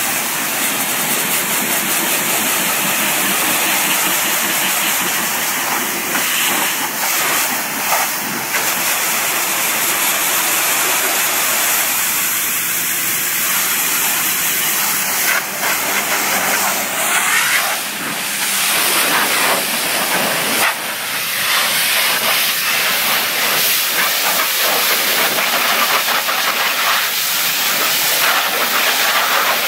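High-pressure water jet from a coin-operated car wash lance spraying a car's side panels and wheels: a loud, steady hiss. Its tone shifts as the jet moves across the bodywork and tyres.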